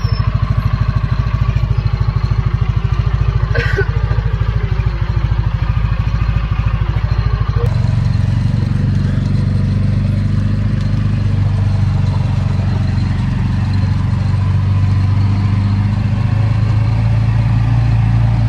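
A farm vehicle's engine running close to the microphone, with a fast, even pulsing. About eight seconds in the note changes to a steadier, fuller sound.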